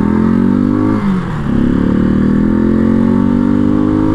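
Janus Phoenix 250 motorcycle's single-cylinder engine accelerating, heard from the rider's seat: its pitch rises, drops at a gear change about a second in, then climbs steadily again in the next gear.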